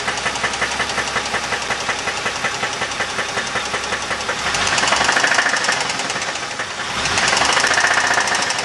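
2000 Dodge Intrepid's 2.7 L V6 engine running with a fast, steady knocking, the sign of an internal engine fault. It gets louder twice, around four and a half and seven seconds in.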